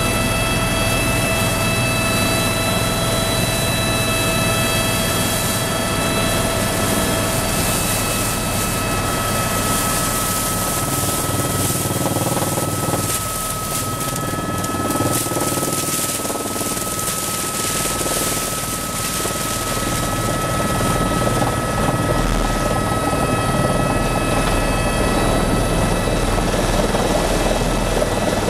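Helicopter in flight, heard from on board: steady, loud engine and rotor noise with a few high, steady whining tones over it.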